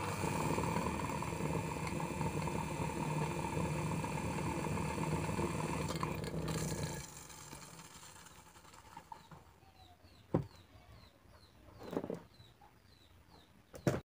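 Rewired three-wire table fan motor switched on and running with a steady electrical hum and whir. About seven seconds in it is switched off and the sound falls away as it coasts down, with a couple of soft knocks near the end.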